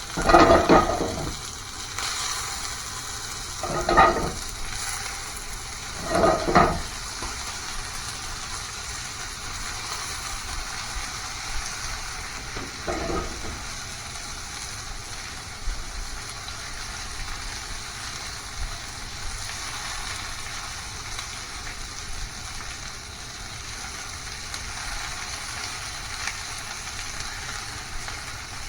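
Food sizzling steadily as it fries in a pan, with a few louder stirring sounds in the first seven seconds and once more about halfway through.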